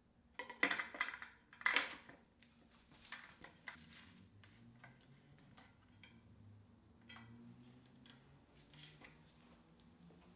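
Dura-Ace front wheel being fitted into a road bike fork: metallic clicks and rattles of the hub and quick-release skewer. Two loud clusters come about half a second and two seconds in, then lighter scattered ticks follow as the skewer is worked.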